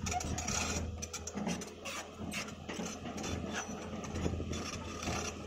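Amphibious excavator travelling on its pontoon crawler tracks: the engine runs with a steady low hum under a stream of irregular clicks and rattles from the track links and undercarriage.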